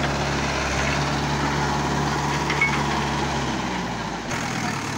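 Mahindra 575 Yuvo Tech Plus tractor's diesel engine running steadily, its low note fading away near the end.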